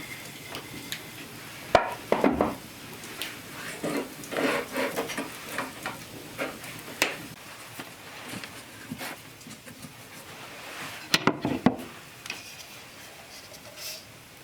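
Cookware and utensils being handled: knocks, clatter and scraping of wooden and metal kitchen things, with sharp knocks about two seconds in and a quick cluster near eleven seconds.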